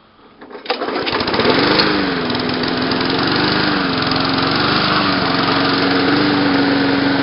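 Briggs & Stratton lawnmower engine catching about a second in after a hard pull on the starter cord, then running. Its speed wavers for a few seconds before settling into a steady run.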